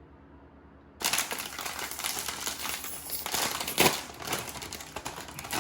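Crinkling and crumpling noise, many irregular crackles that start suddenly about a second in, with the loudest crunch near the end.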